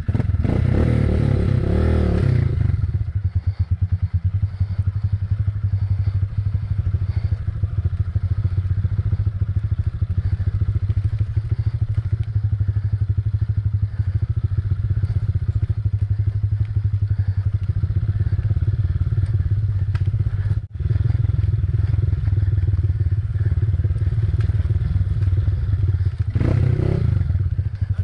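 Motorcycle engine running steadily while riding a rough trail, with knocks and clatter over the ground; it dips briefly about three-quarters of the way through.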